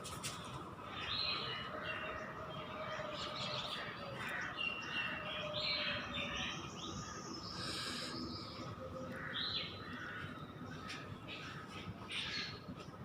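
Several birds chirping and calling, many short overlapping calls, over a faint steady high tone.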